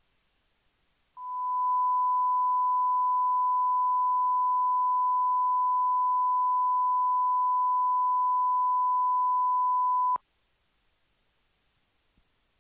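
A steady 1 kHz sine test tone from an analog mixer, set at the −20 VU reference level. It fades in quickly about a second in, holds steady for about nine seconds, then cuts off abruptly with a small click.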